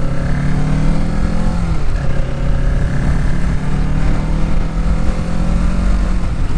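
Kawasaki Ninja 650 parallel-twin engine running under way, heard from the bike with heavy wind rumble on the microphone. Its pitch falls over the first two seconds as the revs drop, then climbs slowly as it pulls again.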